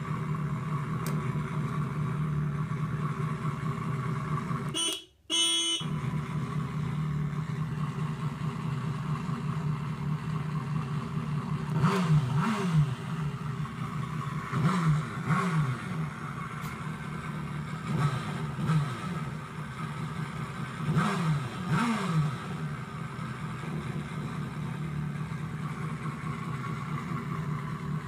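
Motorcycle engine running steadily, with a brief cut-out about five seconds in. In the second half it revs up and drops back down several times in short blips.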